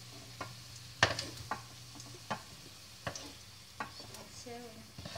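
Wooden spatula knocking and scraping against a nonstick sauté pan while scooping out pan-fried potato pieces, with about a sharp knock every second, the loudest about a second in, over a faint sizzle of hot oil.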